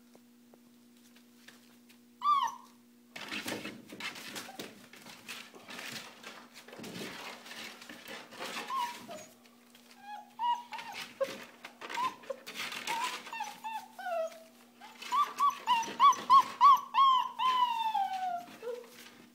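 Five-week-old German Shorthaired Pointer puppies whimpering and yipping, with newspaper rustling under their paws. A sharp yip comes about two seconds in, then scattered whimpers. Near the end they build to a quick run of loud high yelps and one long falling whine.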